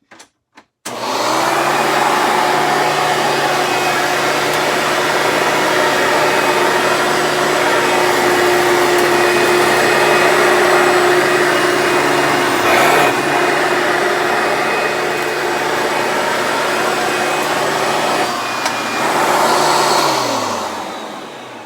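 Hoover Dimension Supreme upright vacuum cleaner switched on about a second in and running steadily as it makes one pass over a test mess of debris and shredded paper. Near the end it is switched off and its motor winds down, the pitch falling away.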